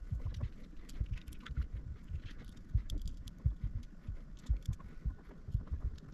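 Irregular light clicks and dull knocks of small plastic and metal parts being handled during disassembly of a Bambu Lab AMS unit.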